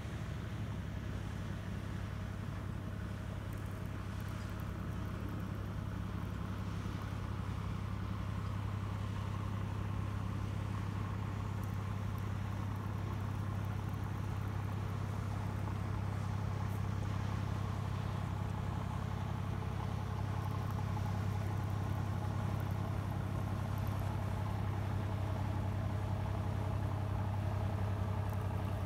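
A motor boat's engine running with a steady low drone, slowly growing louder.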